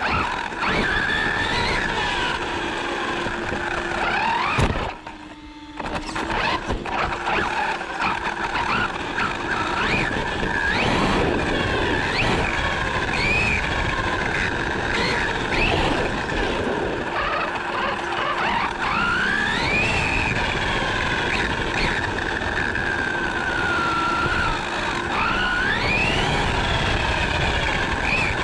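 RC truggy's motor whining as it is driven hard, its pitch rising and falling again and again with the throttle, over steady tyre and road noise picked up by the onboard camera. The sound drops away briefly about five seconds in.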